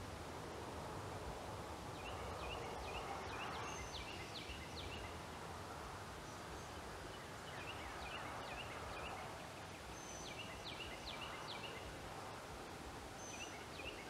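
Faint outdoor background noise with a songbird singing short phrases of quick chirps, about four phrases a few seconds apart.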